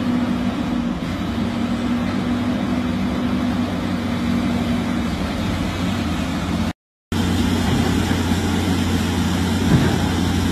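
Heavy construction machines' diesel engines running steadily with a low, even hum. The sound drops out completely for a moment about two-thirds of the way through.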